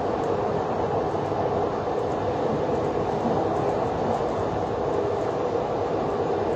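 Transilien commuter train running at speed, heard from inside a passenger car: a steady rumble of wheels on rail, with a faint steady hum underneath.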